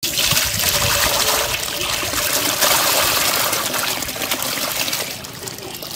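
Muddy river water pouring and splashing out of a large clay pottery pot into a basin, a steady gush that eases off near the end.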